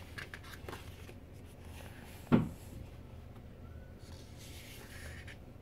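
Paper handling as the pages of a photobook are turned by hand: soft rustles early, then one short sharp tap about two seconds in.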